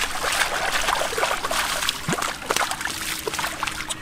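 Shallow muddy water splashing and sloshing as hands churn and scoop through the mud, a busy run of small irregular splashes.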